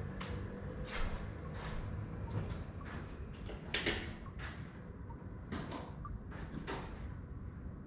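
Irregular light knocks and clicks, roughly one a second, over a low steady rumble.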